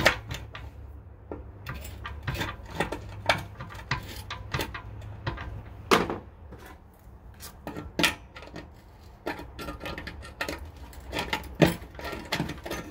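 A screwdriver turning the screw that holds a new stainless steel burner tube in a Weber Q 320 gas grill. Irregular metal clicks and clinks of the tool and tube against the grill body, a few sharper knocks among them, over a steady low rumble.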